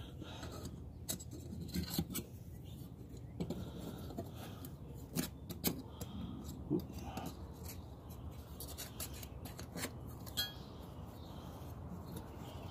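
Metal plates of a small flat-pack fire pit being handled and slotted together: scattered light metallic clicks and scrapes, over a steady low background noise.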